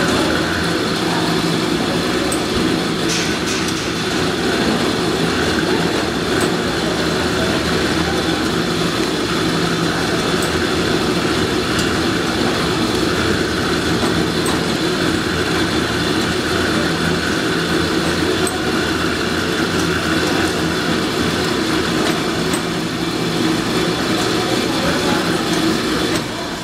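Automatic chapati-making machine running with a steady mechanical hum and a few faint clicks.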